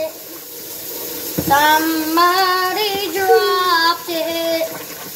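A girl singing a tune in long held notes, starting about a second and a half in.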